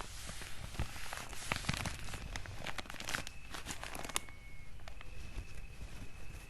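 Paper being crinkled and handled: a dense run of crackles and small snaps that thins out after about four seconds.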